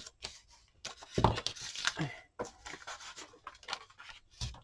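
Paper and craft scraps being handled and shuffled on a table: rustling with small taps and clicks, busiest about a second in.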